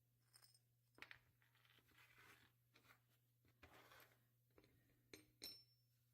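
Faint clicks and short scrapes of small metal parts being handled, over a steady low hum.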